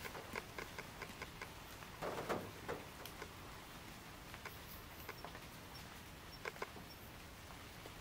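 Raindrops tapping and dripping irregularly over a faint steady hiss, with a denser run of louder taps about two seconds in.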